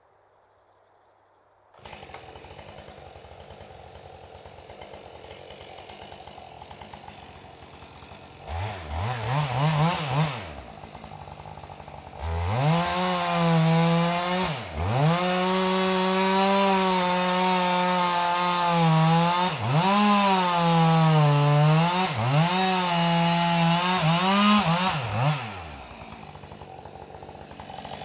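Chainsaw idling from about two seconds in, revved briefly, then run at full throttle into the trunk of a large pine for about thirteen seconds, its pitch dipping and recovering several times under the load of the cut, before dropping back to idle near the end.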